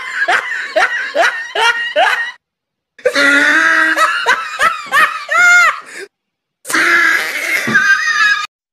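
High-pitched laughter: quick repeated 'ha-ha' pulses in three bursts, each broken off abruptly by a moment of dead silence, with a rising-and-falling squeal in the middle burst.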